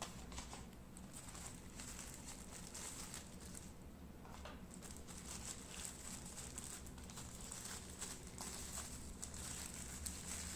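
Faint crinkling and scattered light ticks and taps of hands handling unboxing packaging, over a low steady background hum.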